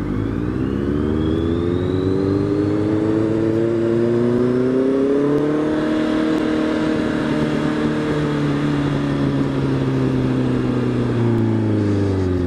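Honda CB650F inline-four motorcycle engine pulling steadily up through a gear, its pitch rising for about six seconds, then holding steady at cruise and easing off slightly near the end, over a steady rush of wind noise.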